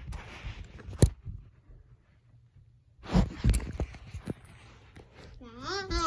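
Rustling and bumping of a phone's microphone being handled and rubbed against fabric and carpet, with a sharp click about a second in, after which the sound cuts out completely for about two seconds. More rustles and knocks follow, and near the end a child's drawn-out, wavering vocal begins.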